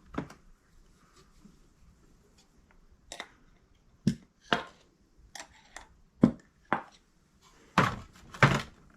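About nine irregular knocks and clicks from handling a VW rocker arm and an oil can, metal parts being picked up, tapped and set down while the rocker is being oiled.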